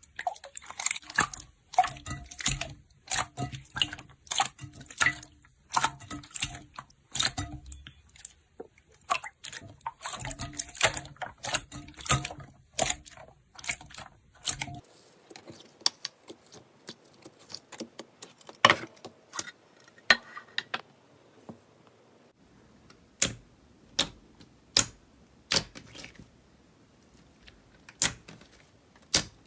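Fluffy clay slime being squeezed and poked by hand, making sharp wet clicks and pops. The pops come thick and fast for about the first fifteen seconds, then thin out to single pops about a second apart.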